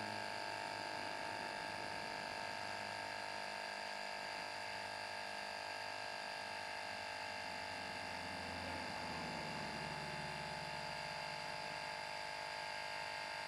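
Small 12 V Microstart portable tire-inflator compressor running steadily, pumping up a motorcycle tire with a buzzing hum. Its pitch drops slightly about nine seconds in.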